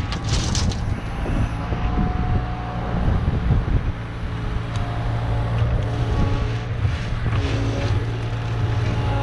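Kubota KX71 mini excavator's diesel engine running steadily under work, with brief hydraulic whines coming and going as the arm moves. About half a second in, soil tips out of the bucket with a short rush; then the bucket works over the ground.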